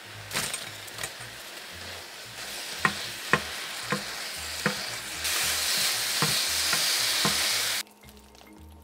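Food sizzling in a frying pan while it is stirred, the utensil clicking against the pan about eight times. The sizzle grows louder about five seconds in, then cuts off abruptly shortly before the end.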